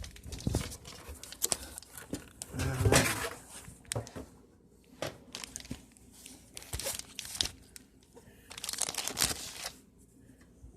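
Paper and packaging crinkling and rustling in irregular bursts as items are handled and pulled from a shipping box, with a brief low hum about three seconds in.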